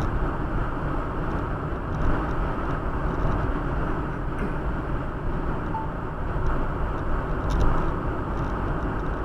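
Steady road and engine noise inside a moving vehicle, a dense low rumble with no clear pitch.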